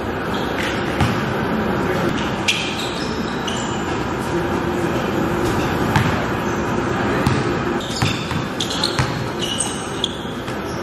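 Basketball bouncing on a hard court floor in irregular knocks during play. Sneakers squeak sharply on the floor in short runs, at about two and a half seconds and again about eight seconds in.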